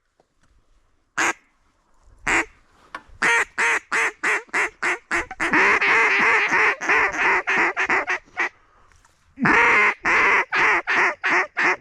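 Duck call blown in long runs of rapid, quack-like notes, several a second: two single notes first, then a fast series that breaks off briefly and starts again, the loud calling used to turn passing ducks toward the decoys.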